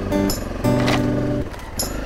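Background music: a run of short instrument notes over a light beat.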